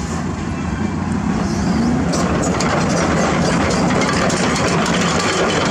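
Diesel engine of a self-loader flatbed truck running steadily, getting a little louder about two seconds in.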